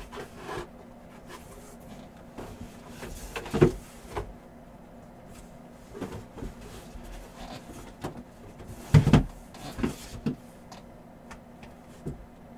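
Scattered knocks and light handling noises of objects being moved, with the loudest knocks a few seconds in and about nine seconds in, over a steady low hum.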